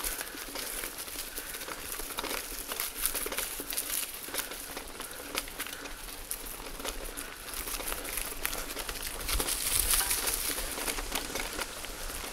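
Bicycle tyres rolling over a dry dirt trail strewn with fallen leaves, a continuous crackling and crunching with frequent small clicks and rattles from the bike. It grows a little louder about ten seconds in.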